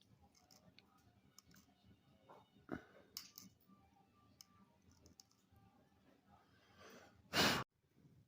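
Faint small clicks and scrapes of a knife point working in a folding knife's button recess, scraping out old adhesive. Near the end there is a single short, loud rush of noise.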